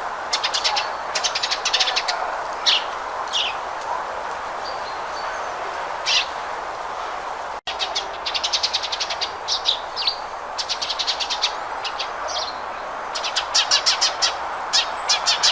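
House sparrow chirping in quick runs of short, repeated notes, with single chirps between the runs, over a steady background noise. The sound drops out for an instant about halfway through.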